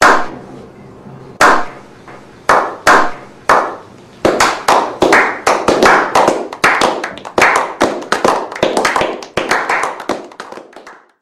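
A slow clap by a small group of men: single hand claps about a second apart at first, quickening from about four seconds in into steady applause, then stopping just before the end.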